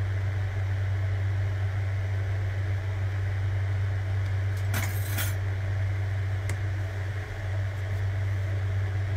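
A steady low hum, with a short rustling clatter about five seconds in and a faint click a little later.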